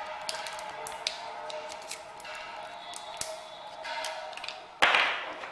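Hands unwrapping and handling an AA battery: scattered light clicks and crinkles of the wrapper, with one louder sudden rustle near the end. A faint steady hum runs underneath.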